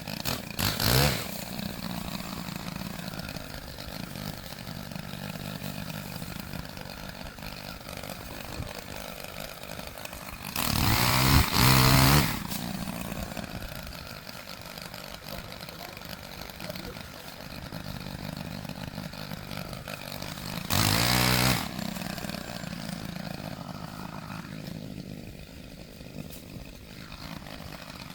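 Chainsaw running at idle, revved hard three times in short bursts, the longest about two seconds, as it cuts through ice-laden tree limbs.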